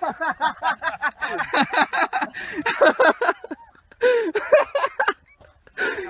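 People laughing hard in rapid bursts of 'ha-ha', dying down after about three and a half seconds, then breaking out again in shorter fits.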